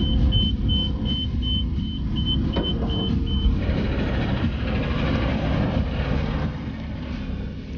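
BMC Kirpi mine-protected armoured vehicle's diesel engine running with a heavy, steady rumble as it pulls away and drives past close by, fading near the end. A high electronic beep repeats about three times a second over the first three and a half seconds.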